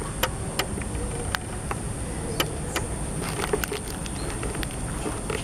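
Outdoor ambience: a steady low rumble under a continuous high-pitched whine, with scattered sharp clicks throughout.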